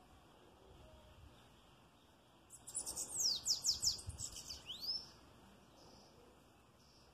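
Caged bananaquit (sibite) singing one quick burst of high, thin notes, each sweeping downward, ending on a rising note; the song starts about two and a half seconds in and lasts about two and a half seconds.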